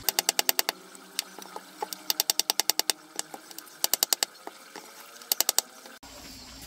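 Rapid sharp tapping of something hard, in four quick bursts of about ten taps a second.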